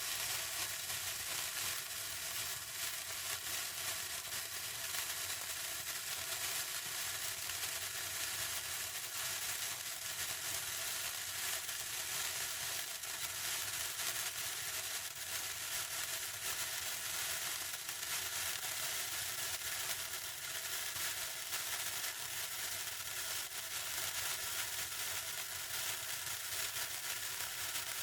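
Burning bomb fuse sizzling and crackling steadily, a constant hiss without pause.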